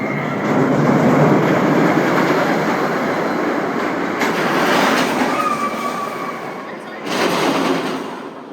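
Montezuma's Revenge shuttle-loop roller coaster train running along its track, its wheels rumbling steadily with a brief squeal about five seconds in. The rumble fades away near the end as the train slows.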